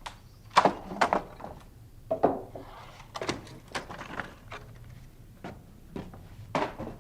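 A series of irregular knocks and thuds, about a dozen sharp impacts, some in quick pairs.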